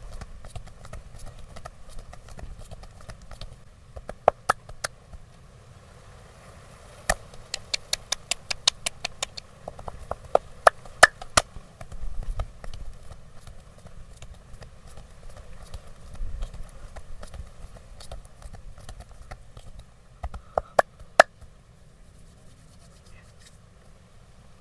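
Massage strikes on the body: a few single sharp knocks, then a quick even run of taps at about five a second, with more scattered knocks later.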